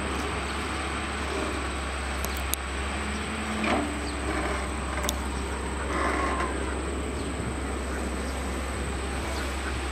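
Caterpillar 320CL long-arm excavator's diesel engine running steadily, with a couple of brief higher-pitched sounds over it about four and six seconds in.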